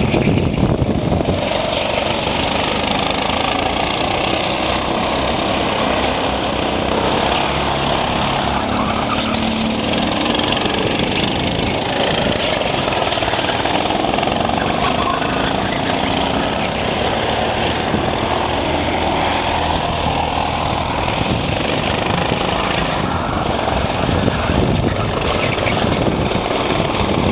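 Engines of several go-karts running as they lap the track, blending into one steady mixed drone.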